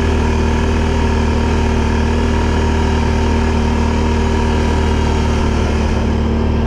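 A quad bike (ATV) engine running steadily at an even pitch, with no revving.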